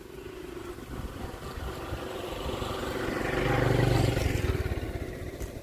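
A motor vehicle passing by: its engine grows louder, is loudest about four seconds in, then fades away.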